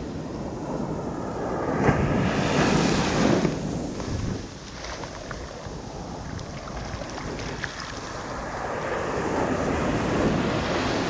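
Sea surf breaking on a beach and foam washing in, heard close at the waterline. A wave crashes about two seconds in, the wash eases off past the middle, then builds again near the end.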